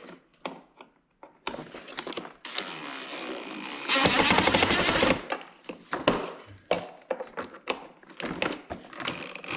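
Scattered clicks and knocks of plastic parts being handled and fitted, and about four seconds in a cordless drill driving a screw with a loud rapid rattling buzz for about a second, fastening the battery holder.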